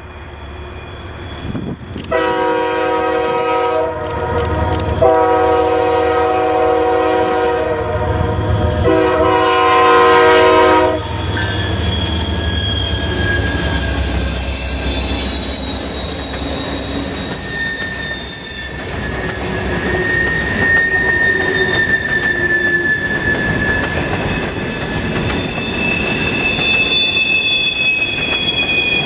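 Norfolk Southern diesel freight locomotive sounding its horn in three blasts over the running engine, the middle blast the longest. After that, covered hopper cars roll past on the curve with their wheels squealing in high, wavering tones.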